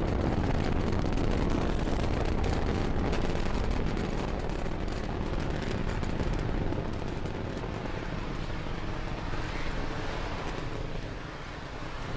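Falcon 9 first stage's nine Merlin engines at full thrust during ascent: a dense rumble with sharp crackle heard from the ground, which softens and fades over the last few seconds as the rocket climbs away.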